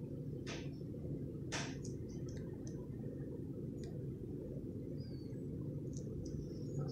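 A steady low hum of background noise, with a few faint light clicks and soft high squeaks over it.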